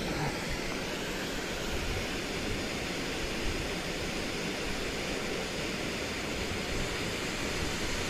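Steady rush of fast-flowing river water, an even noise that holds without a break.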